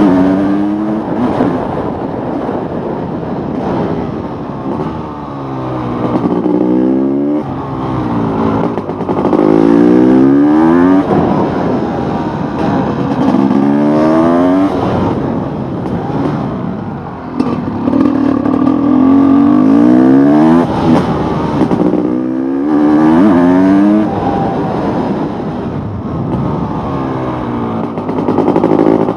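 Honda CR500 two-stroke single-cylinder engine, in supermoto trim, being ridden hard: it revs up through the gears again and again, the pitch climbing in each gear and dropping back at each shift, with a steadier stretch midway.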